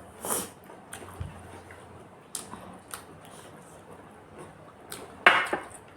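Eating sounds at a meal: scattered small clicks and mouth noises of chewing and handling food. There is a short hiss just after the start and a louder breathy noise about five seconds in.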